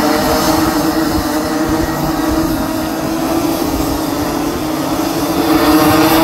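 Several Rotax 125cc two-stroke racing kart engines running at speed together, giving a steady high-pitched engine drone that grows louder about five and a half seconds in.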